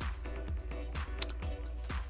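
Background music with a steady beat, about two beats a second, over a steady low bass.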